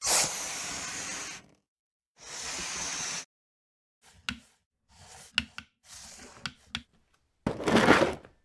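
Added sound effects for a stop-motion clay animation: two hissing rushes of noise about a second long each, then a run of light knocks and clicks, and a louder rushing burst near the end.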